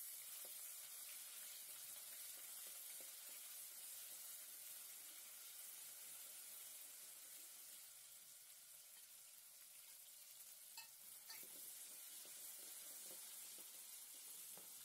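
Ginger-garlic paste with cinnamon and cloves sizzling faintly in hot oil while being stirred with a metal spoon in an aluminium pot, the paste being sautéed until its raw smell cooks off. A couple of light clicks come about eleven seconds in.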